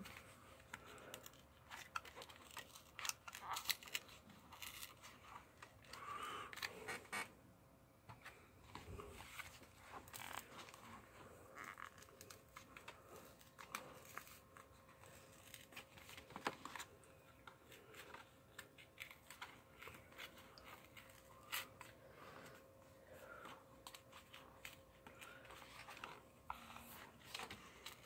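Faint crinkling, scratching and tearing of a marker's packaging being picked at and pulled apart by hand, in many small irregular crackles and ticks.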